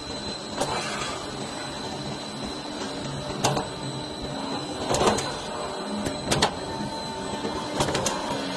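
Light gauge steel C/U channel roll forming machine running with a steady mechanical hum and a thin high whine, broken by five sharp clacks at uneven intervals.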